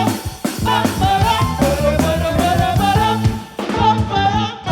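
Live gospel praise band playing an upbeat groove on drum kit and instruments, with a sung melody over it.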